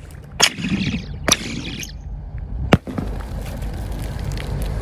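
A firecracker going off on frozen pond ice and blasting a hole through it: three sharp cracks in the first three seconds, the first two each followed by a brief hiss, then a steady low rumble.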